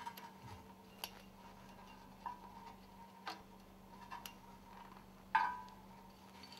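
Sparse light metallic clicks and clinks of a coil spring and a hook tool against stuffing-box scraper ring segments as the spring ends are hooked together. The loudest clink, with a brief ring, comes a little past five seconds in.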